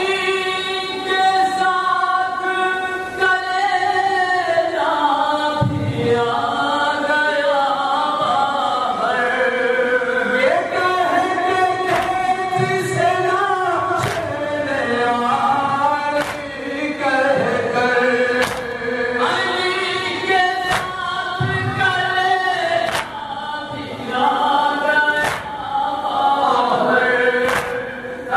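Men's voices chanting a noha, a Shia mourning lament, together into a microphone in sung phrases, with sharp chest-beating (matam) slaps roughly every second or two.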